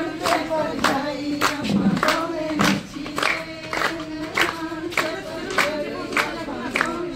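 A group of women singing together and clapping their hands in time, about two claps a second.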